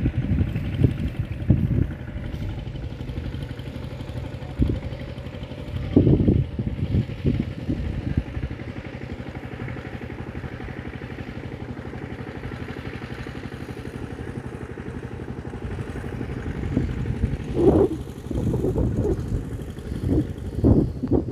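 Wind buffeting the microphone: a low, irregular rumble with stronger gusts about six seconds in and again near the end.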